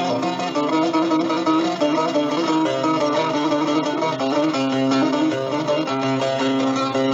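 Instrumental passage of a Turkish Alevi deyiş led by a plucked bağlama (saz) playing a running melody over a steady lower accompaniment, with no singing.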